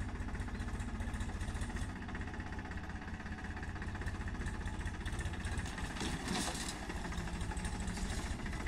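Powertrac 50 tractor's diesel engine running steadily with an even low chugging as the tractor works through a flooded paddy field.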